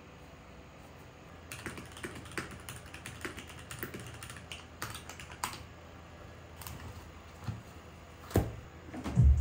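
Typing on a mechanical keyboard with a clear case: a quick run of clacking keystrokes starting about a second and a half in and stopping about two seconds before the end. Near the end come two louder, deeper thumps as a spiral notebook is handled on the desk.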